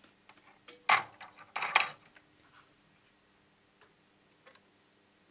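Small metal tools and parts clicking and clattering as they are picked up and handled while a replacement capacitor is fitted into the recorder's tag board, with two sharp clatters about a second in and just before two seconds, then a few faint ticks over a low steady hum.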